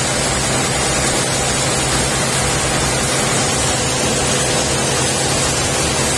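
Coffee milling machine running steadily: a constant loud rushing noise over a steady low drone.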